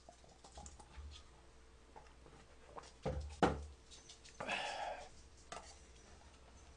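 Small plastic yogurt-drink bottles being handled and knocked on a table, with a couple of sharp knocks about three seconds in and a short rustle-like sound near five seconds.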